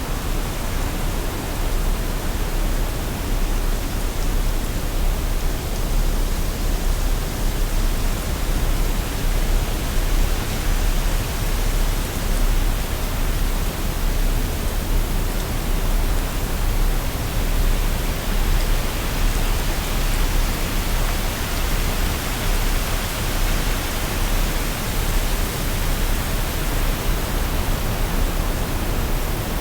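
Waterfall: a steady, unbroken rush of falling water with a deep low rumble underneath.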